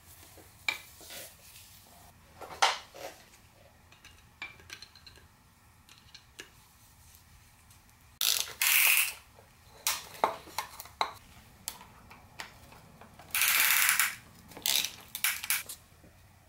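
Ratchet-type piston ring compressor being tightened around a piston, its ratchet clicking in two short spells, the second about 13 s in, among scattered light metal clicks and taps of parts being handled.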